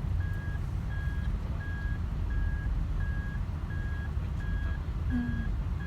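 An electronic beeper sounds a steady, short high beep about every 0.7 seconds over the low rumble of a car driving.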